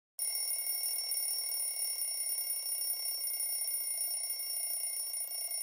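A steady hiss with several faint, steady high-pitched whines held over it, unchanging.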